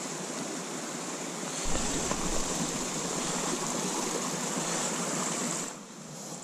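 A mountain stream's running water: a steady rushing hiss that grows louder about two seconds in and falls away suddenly near the end.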